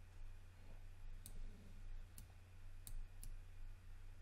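Computer mouse clicking: four sharp, unevenly spaced clicks over a steady low hum.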